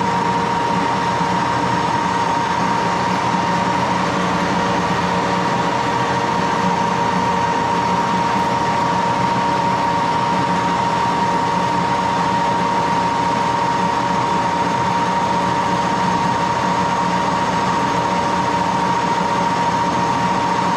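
1941 Axelson gear head lathe running steadily, with a constant gear whine over its even mechanical hum.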